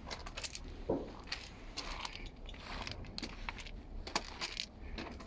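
Footsteps crunching on gravel: a string of irregular short crunches over a low steady rumble.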